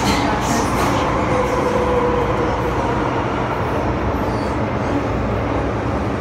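Metro train running, heard from inside a passenger carriage: a steady rumble of wheels and car body with a faint, even whine.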